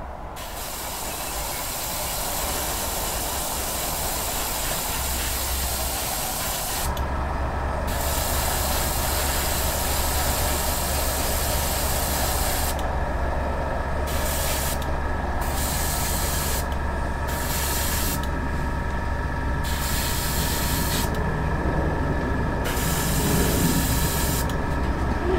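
Airbrush hissing as it sprays paint, its air flow stopped and restarted about seven times as the trigger is released and pressed again. A steady low hum comes in about seven seconds in.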